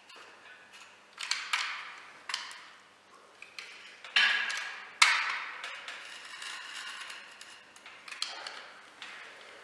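Irregular sharp knocks and clatters of hand work, about seven in all, each dying away over up to a second, the loudest about five seconds in.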